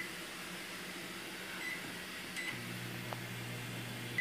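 Microwave oven: short keypad beeps, then a click about two and a half seconds in as it starts running with a steady low hum.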